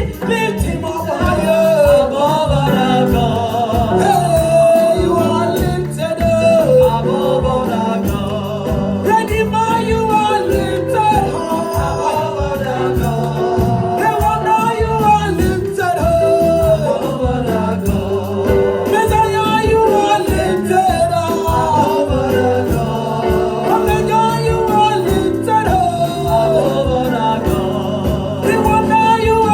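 Gospel praise and worship music: live band with a singing voice, a steady beat and bass.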